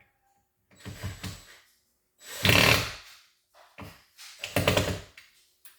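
Power drill-driver running in about four short bursts, driving screws to fix a door handle; the longest and loudest burst comes about two and a half seconds in.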